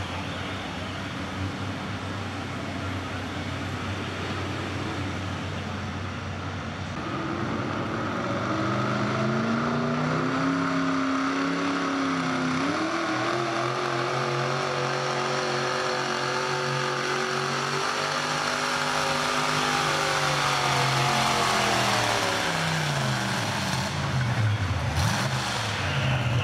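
Mini two-wheel-drive pulling truck's engine idling, then revving up about seven seconds in and held at high revs as it drags a weight-transfer sled down the track. The revs fall away near the end as the pull ends.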